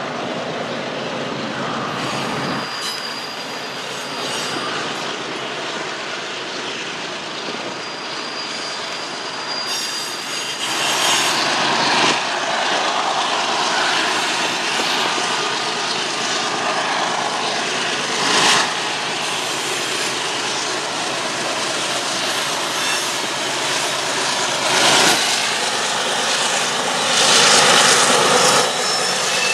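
Freight train rolling past, a steady rumble of steel wheels on rail with brief high flange squeals, growing louder about ten seconds in. Wind buffets the microphone in gusts.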